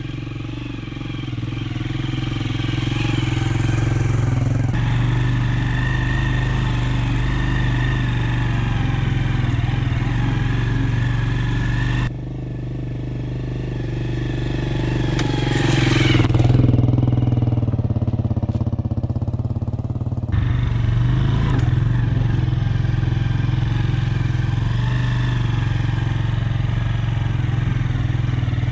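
Motorcycle engine running as the bike climbs a rough dirt track. About two-thirds through it grows louder to a peak and its pitch sweeps, as it comes close past the camera. The sound changes abruptly twice, and the engine then runs steadily as heard from on the bike.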